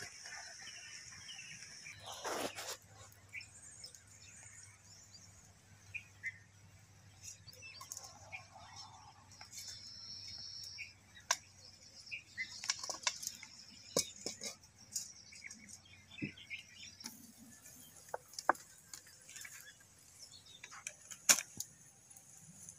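Outdoor cooking handling sounds: knife taps on a wooden chopping board, then scattered clanks and knocks as an aluminium kadai is picked up and set on a brick fire stove, the sharpest knock about 21 seconds in. Birds chirp steadily in the background.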